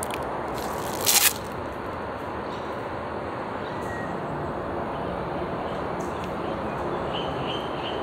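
Steady outdoor background noise with one short, loud rush of noise about a second in, and a few faint high chirps, like a small bird's, near the end.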